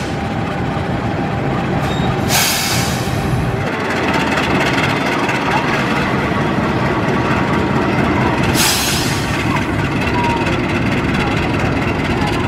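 CC 206 diesel-electric locomotive running steadily as it hauls passenger cars slowly along the track while shunting. Two brief bursts of hiss come about six seconds apart.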